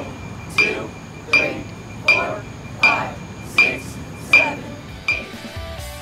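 Amplified metronome clicking steadily, about 80 beats a minute, keeping time for a marching band rehearsal. Strummed guitar music comes in near the end.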